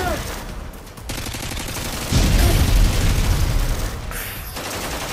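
Edited-in war sound effects: rapid machine-gun fire, joined about two seconds in by the heavy rumble of an explosion that lasts a couple of seconds.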